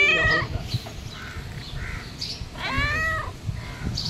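Tortoiseshell cat meowing twice, begging for food: a call right at the start and a longer one about three seconds in that rises and then falls in pitch.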